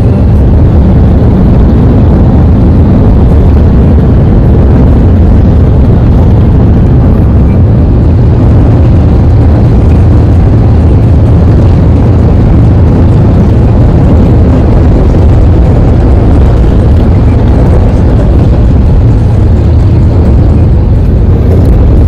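Vehicle on the road: a steady, loud, low rumbling drone of engine and road noise, with no change throughout.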